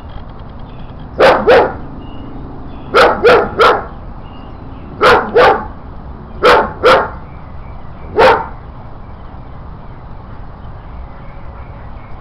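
A dog barking in quick groups of two or three, about ten barks in all, then stopping.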